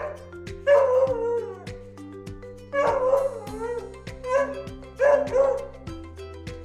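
A dog barking and yelping in short calls that fall in pitch, about five of them in two groups, over cheerful background music with a steady beat.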